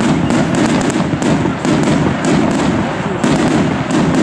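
Fireworks going off in quick succession, about three sharp bangs a second over a continuous rumble, as shots climb and burst overhead.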